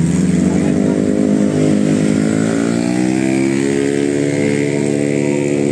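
A road vehicle's engine accelerating, its pitch climbing for a couple of seconds and then levelling off.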